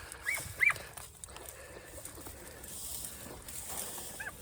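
A hunting dog yipping on a rabbit it has found: two short, high yelps close together about half a second in and one more near the end, heard at a distance over faint rustling.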